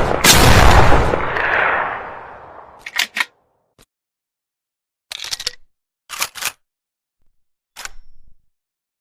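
A TOZ over-and-under shotgun fires a shot about a quarter second in; it is very loud and its echo dies away over about two seconds. Several short clicks follow in small groups over the next five seconds, typical of the gun's action being handled between shots.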